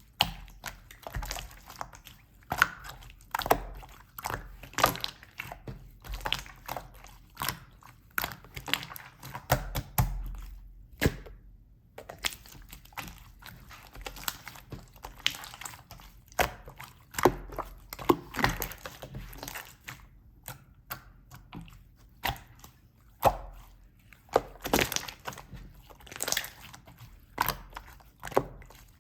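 Clear slime being squeezed and pressed by hand, making irregular short sticky pops and clicks, several a second, with a brief pause about eleven seconds in.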